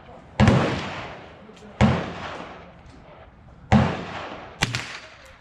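Thompson Center R1 .22 LR rifle fired three times at an unhurried pace, each shot trailing off in a long echo. A shorter, sharper crack follows about a second after the third shot.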